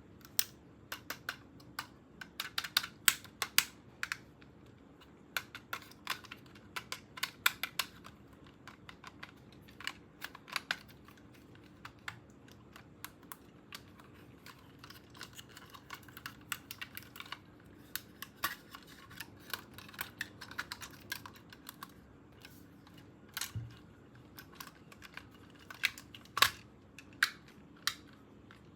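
Irregular sharp plastic clicks and taps, in quick clusters, from a toy and its packaging being handled during unboxing.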